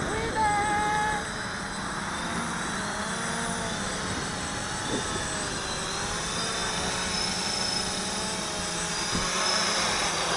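The electric lift motors and propellers of a homemade VTOL model aircraft hovering as it comes down to land, a steady whirring drone with a pitch that wavers up and down as the motor speeds are adjusted.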